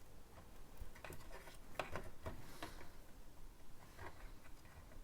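Faint, scattered clicks and taps of plastic Lego bricks being handled and pressed into place, a few sharp ones about a second to two and a half seconds in and another near four seconds.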